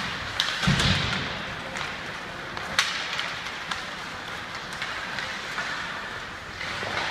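Ice hockey play in a rink: sticks and puck clacking several times, the sharpest clack about three seconds in, over a steady hiss of skates on ice.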